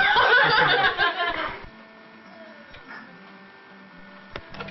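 A person laughing for about a second and a half, then a faint steady hum with a few sharp clicks near the end.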